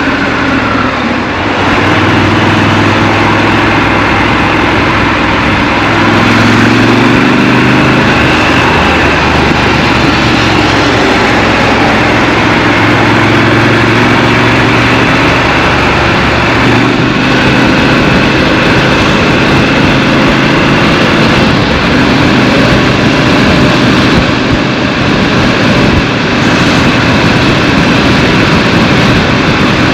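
Scrambler motorcycle engine running while riding, heard from the rider's position under wind and road noise, its note rising and falling several times as the speed changes.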